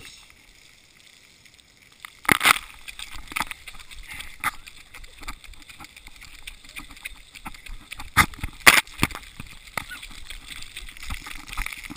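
Water splashing and sloshing close against a GoPro camera, in irregular bursts, with the loudest splashes about two and a half seconds in and again around eight to nine seconds.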